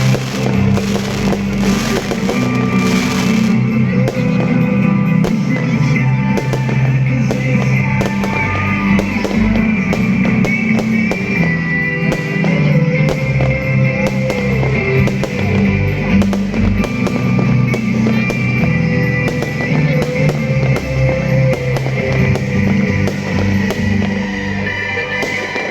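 New Year fireworks bursting in rapid, frequent bangs, heard under background music.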